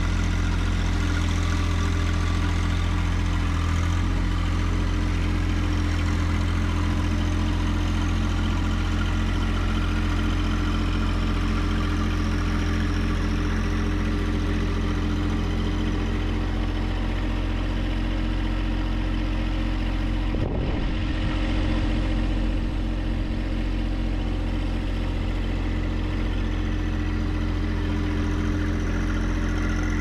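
John Deere 1025R compact tractor's three-cylinder diesel engine running steadily as the tractor drives slowly with the mower deck lifted on its front loader. A brief knock sounds about twenty seconds in.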